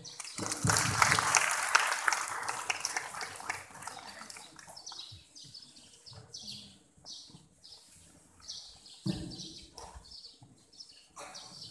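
Audience applauding, the clapping fading out after about four seconds; scattered bird chirps follow.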